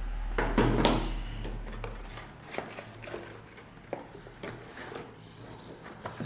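Handling noise from unpacking metal detector parts: a rustle of packaging about half a second in, followed by scattered light clicks and taps. A low hum runs under it and stops about two seconds in.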